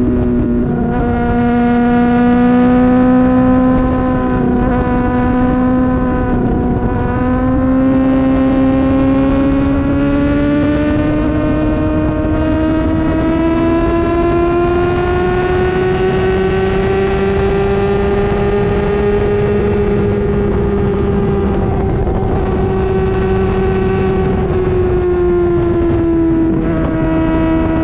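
Honda CBR600RR inline-four engine running under steady throttle. Its pitch holds level at first, climbs slowly for about ten seconds, then eases back down near the end.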